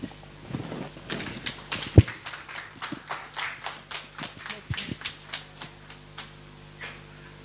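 Sparse audience applause: a few people clapping, starting about a second in and thinning out by about six seconds, with one loud thump about two seconds in.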